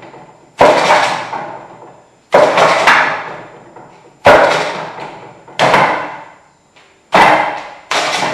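Wing Chun wooden dummy (muk yan jong) being struck: about six sharp wooden knocks, roughly a second and a half apart, each ringing on for a second or so. The blows are hand strikes on its hardwood arms, with a kick on its leg near the end.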